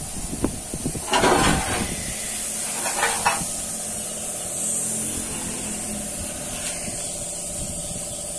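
Compressed air hissing steadily from an air hose on a truck wheel, with two short bursts of metallic clatter about a second and three seconds in.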